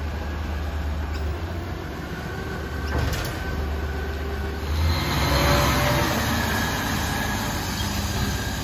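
Front-loader garbage truck's diesel engine running steadily as it raises its fork arms and pulls away, then the truck driving past on a wet road, its tyre hiss swelling loudest about five seconds in and fading.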